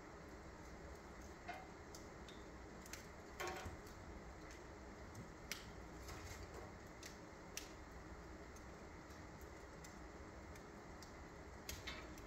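Wood fire crackling on a fireplace grate: faint, irregular sharp pops a second or more apart, with a small cluster about three and a half seconds in and another near the end, over a quiet steady background noise.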